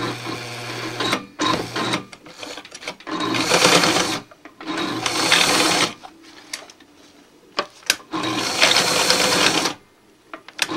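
Electric sewing machine stitching camouflage fabric, running in about five short bursts of one to two seconds with pauses and a few clicks between, as the cloth is fed and repositioned under the needle.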